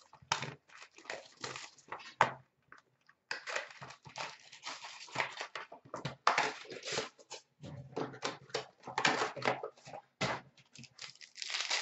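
Hands opening a cardboard box of Upper Deck SPx hockey cards: irregular rustling, sliding and tearing of cardboard and packs.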